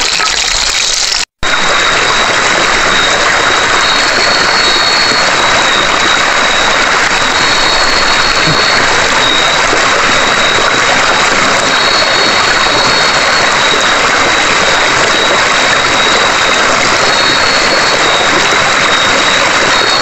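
Night-time insect chorus: a dense, steady hiss with an unbroken high trill, and a slightly higher trill that comes in for a second or so every few seconds. The sound cuts out for an instant a little over a second in.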